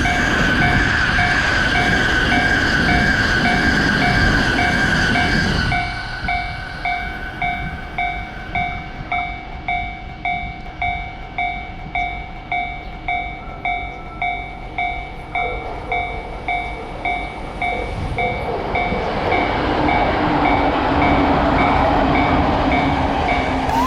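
Japanese railroad crossing warning bell ringing in steady, evenly repeated strokes. A Seibu Railway train rumbles through with a steady whine for the first several seconds, then clears about six seconds in, leaving the bell ringing on its own. A rumble builds again near the end.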